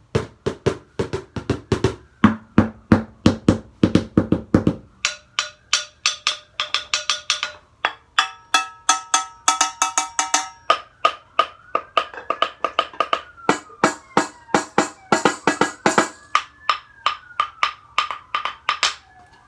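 A stick beating a steady rhythm, about three strikes a second, on household objects. For the first five seconds it makes dull knocks, then it strikes a metal saucepan that rings with clear tones, and in the last part the ringing wavers up and down in pitch.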